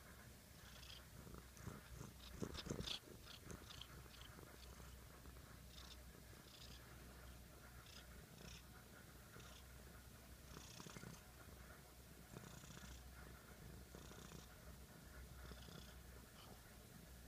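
Domestic cat purring steadily and softly, a continuous low rumble with a breathy rise and fall every second or two. A brief louder rustling with clicks comes about two to three seconds in.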